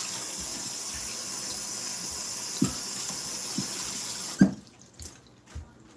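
Water running from a kitchen tap into the sink, shut off suddenly about four seconds in with a knock, followed by a few light knocks.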